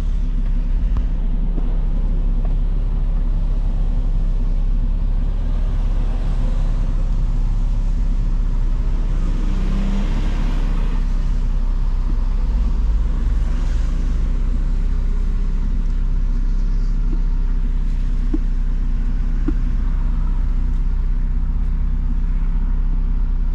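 Car cabin noise while driving: a steady low engine and road rumble, with a rise of tyre and road hiss about ten seconds in and again a few seconds later.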